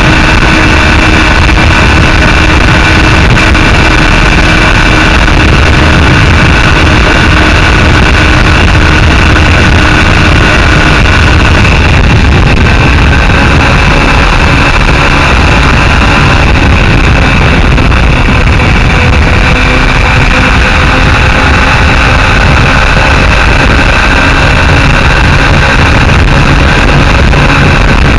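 Mondial SMX Enduro motorcycle's engine running steadily at a cruise of about 100 km/h, with wind and road rush on the mounted camera.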